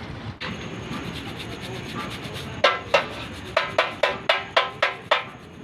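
Metal-on-metal scraping, then a run of about nine sharp hammer blows on a steel part of a truck's DDU drive assembly, each ringing briefly, starting about two and a half seconds in.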